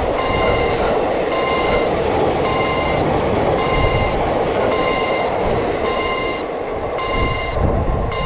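Japanese railroad crossing warning bell ringing in a steady repeating rhythm over the continuous rushing noise of a train passing through the crossing.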